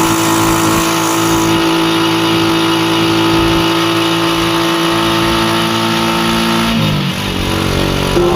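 A motorela's small motorcycle engine runs at a steady pitch under load. About seven seconds in the pitch drops, then picks up again near the end.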